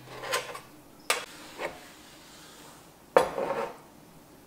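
Metal spoon and glass mixing bowl clinking and knocking on a countertop: a few separate clinks, the loudest a little after three seconds in, with a short ring.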